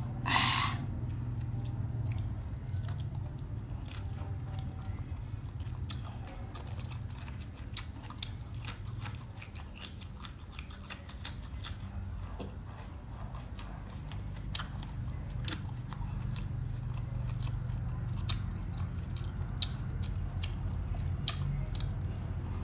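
Close-up chewing and biting of someone eating, with many small sharp crunches and mouth clicks scattered throughout and a brief louder crunch just after the start. A steady low hum runs underneath.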